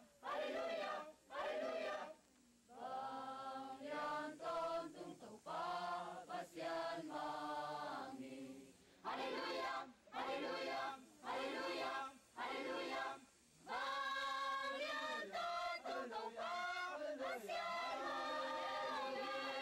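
A mixed choir of women and men singing together in long sung phrases, with short pauses for breath between them.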